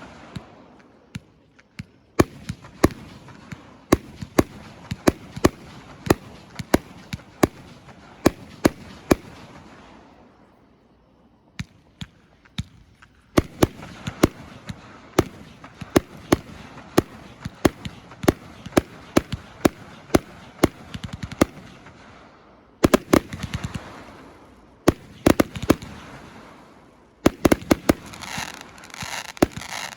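A 284-shot consumer firework cake firing: a rapid run of sharp shot reports and bursting breaks. The firing thins out around ten seconds in, picks up again a few seconds later, and turns into a dense flurry of quick bangs near the end.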